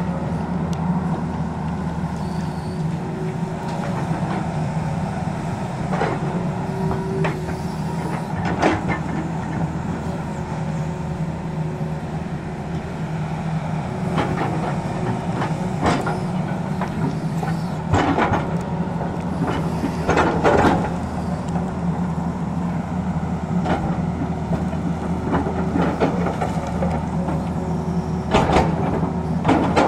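Hitachi crawler excavator's diesel engine running steadily under digging load, with several sharp clanks and scrapes as the bucket bites into rock and stony soil.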